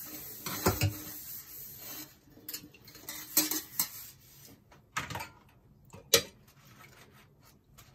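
Crockery being washed by hand in a stainless steel sink: cups and plates clinking and knocking against each other and the sink, about half a dozen sharp knocks, the loudest about six seconds in. A steady hiss runs under the first two seconds and then stops.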